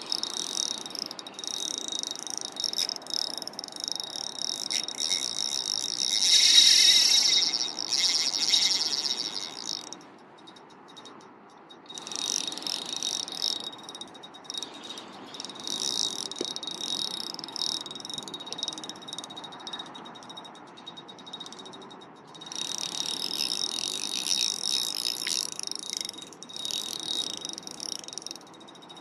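Drag of an ultralight spinning reel clicking in rapid bursts as a hooked fish pulls line off. The longest and loudest run comes in the first ten seconds, and shorter runs follow several times later.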